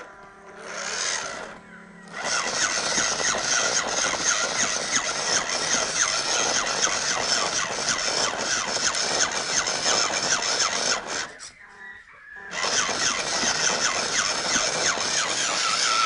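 Small RC crawler's electric motor and gearbox whirring under load as it climbs over stacked firewood blocks, driven in pulses of throttle. There are two short bursts in the first two seconds, then a long steady run. The drive stops for about a second roughly eleven seconds in, then starts again.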